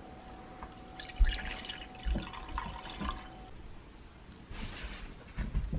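Hot drink poured into a mug, with drips and a few dull knocks. A faint steady whine runs under it for the first three seconds or so.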